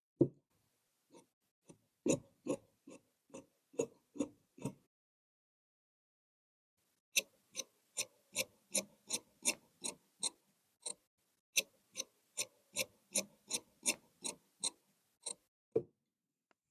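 Large tailor's shears snipping through cloth in a steady run of crisp clicks, about two or three a second. The run stops for about two seconds near the middle, then resumes.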